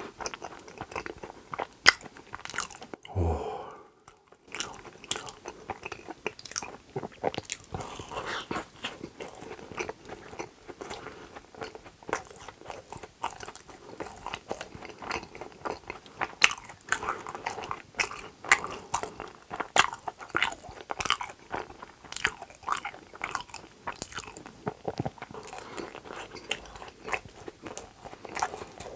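Close-miked chewing of a soft glazed donut: wet mouth clicks and smacks, with a short pause about three seconds in.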